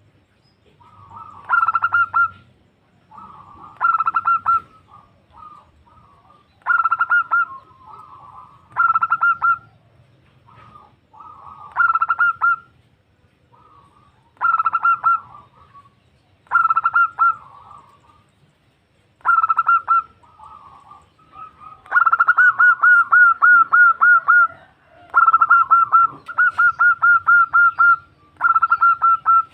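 Female zebra dove (perkutut) calling to a male: short cooing phrases, each a quick run of notes, repeated about every two seconds. Near the end the phrases become longer strings of rapid, even notes.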